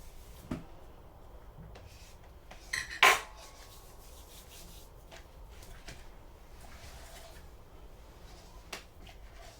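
Tableware at a meal: faint scraping and small knocks of cutlery on plates, with one sharp clink about three seconds in that rings briefly.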